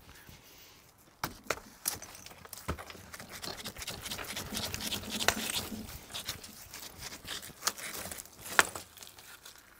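Loose bricks being worked out of a damaged brick wall by hand: scattered sharp knocks of brick against brick, over gritty scraping of brick and old mortar.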